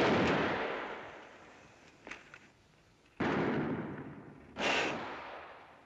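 Film-soundtrack gunshots: three loud shots, at the start, about three seconds in and again a second and a half later, each trailing off in a long echo, with a faint crack in between.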